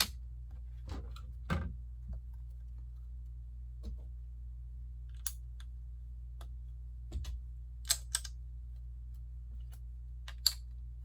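Plastic Lego pieces being handled and pressed together: scattered, irregular sharp clicks and small knocks, the sharpest near the end, over a steady low hum.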